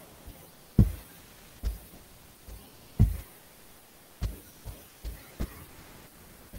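Pen or stylus knocking on a writing surface close to the microphone while an equation is written out: about eight irregular dull knocks, the loudest about a second and three seconds in.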